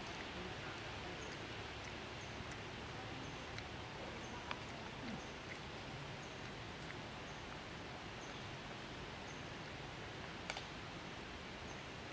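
Steady outdoor background noise, with a faint high chirp recurring about once a second and a few soft clicks.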